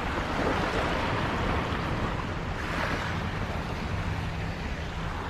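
Small harbour waves washing against the shore rocks, swelling louder twice, with wind rumbling on the microphone.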